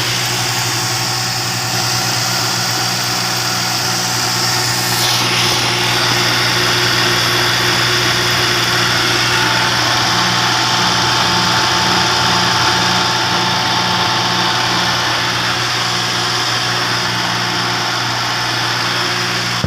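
Air-conditioner compressor running steadily with a constant low hum and fan hiss, on a system the owner says has a pressure-overload problem with a leaking compressor.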